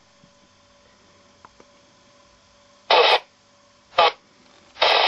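2-metre FM transceiver's speaker giving two short bursts of static hiss, then steady hiss just before the end: the squelch opening on a weak incoming signal.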